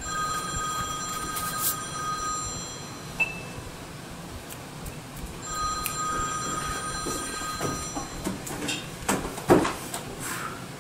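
A telephone ringing: two rings of about two seconds each, a few seconds apart. Near the end come a few knocks and one loud thump.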